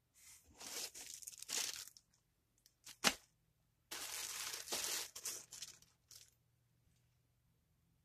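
Clear plastic packaging of boxer shorts crinkling as the packages are handled and shifted on a table. The crinkling comes in several bursts, with a sharp snap about three seconds in.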